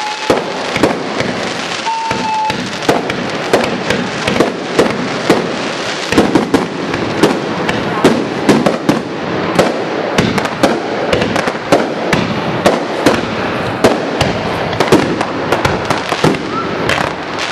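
Fireworks display: aerial shells bursting in a rapid, irregular run of bangs and crackles, with a short steady tone about two seconds in.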